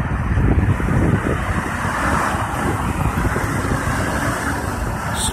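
Semi truck and its long low trailer rolling past: tyre and diesel engine noise, with wind rumbling on the microphone.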